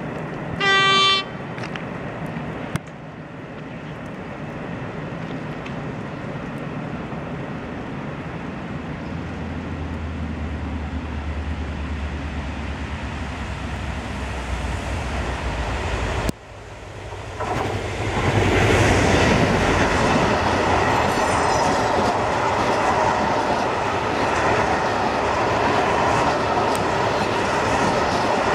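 A short horn blast from a Renfe class 335 (Vossloh Euro 4000) diesel locomotive near the start, then the low rumble of its diesel engine growing as it approaches. From about 18 seconds in, a loud steady rush of a container freight train's wagons passing close on the rails.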